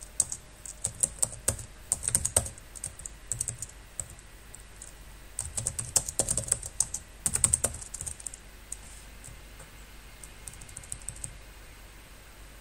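Computer keyboard being typed on in quick bursts of keystrokes with short pauses between them. A few last keys are pressed near the end, then the typing stops.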